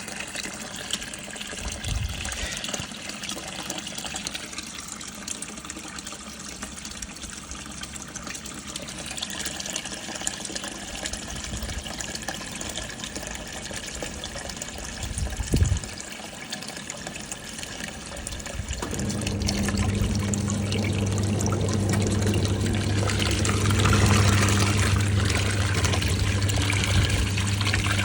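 National NA9450PN washing machine filling its tub with water for the second rinse, water trickling and pouring in steadily. About halfway there is a single low thud, and near the end a steady electrical hum starts as the sound grows louder.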